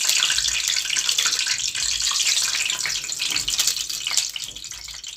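Hot cooking oil sizzling and crackling in a metal pot on a gas burner as it is ladled in, dying down near the end.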